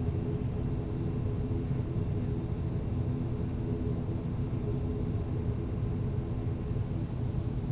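ATR 72-500's Pratt & Whitney PW127 turboprop engines and propellers running at low power as the aircraft taxis, heard inside the cabin: a steady low rumble with a hum of several steady tones.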